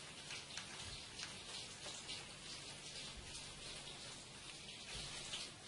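Faint crackly hiss with many light ticks, from small wooden matchsticks being handled and set into glue.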